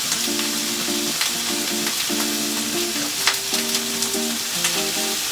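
Sliced chayote and broccoli sizzling in hot olive oil in a frying pan as they are stirred, with an even hiss and a few sharp clicks of the utensil against the pan. A simple tune plays underneath.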